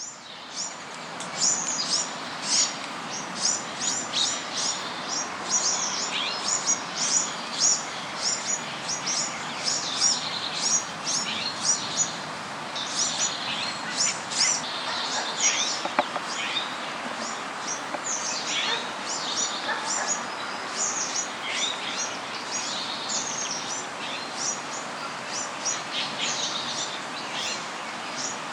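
Small birds chirping: a quick, continuous run of short high chirps, several a second, over a steady background hiss.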